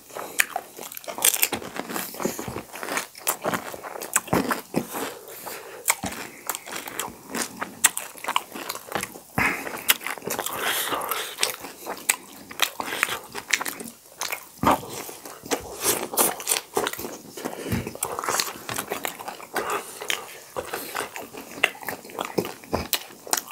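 Close-miked eating: crisp pani puri shells crunching and being chewed, with irregular sharp clicks and small clinks of a fork and spoon against plates and bowls.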